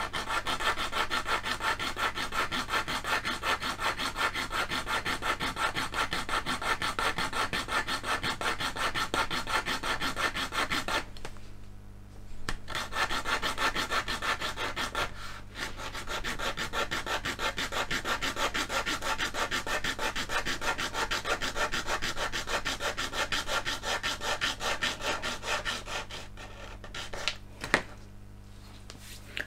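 Fine crosscut-toothed Tamiya hobby saw cutting through the pour stub of a resin part with quick, rapid back-and-forth strokes. The sawing pauses about eleven seconds in, then resumes. It stops a few seconds before the end as the stub comes free.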